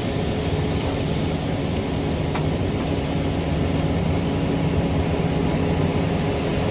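Concrete mixer truck's diesel engine running steadily with a low hum while the drum discharges leftover concrete, with a faint click about two and a half seconds in.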